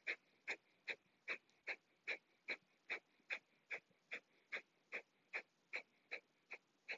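Breath of fire: short, forceful exhales through the nose, each driven by snapping the belly back, at an even pace of about two and a half a second. The quick inhales between them are hardly heard.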